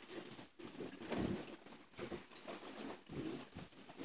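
Wind gusting and buffeting over a small sailboat under way in a choppy sea, with water rushing and slapping along the hull, in uneven surges.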